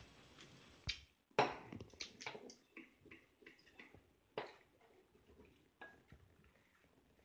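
Faint, scattered light clicks and knocks, the loudest about a second and a half in, with near quiet between them.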